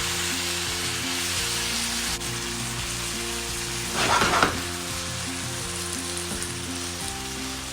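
Chicken, onion and spices sizzling as they fry in a pan, a steady hiss with a louder burst of sizzling about four seconds in. Background music with held notes plays underneath.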